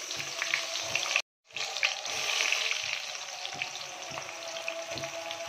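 Sliced onions just added to hot oil frying in a steel pot: a dense sizzle with scattered pops. It drops out abruptly for a moment about a second in, then comes back loud and eases off a little.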